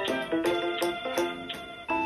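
Instrumental end-credits music, a melody of short pitched notes changing a few times a second over held tones.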